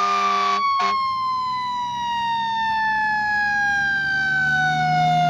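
Fire engine siren: a steady high tone that breaks off just over half a second in, then a single long tone that slides slowly down in pitch, like a siren winding down.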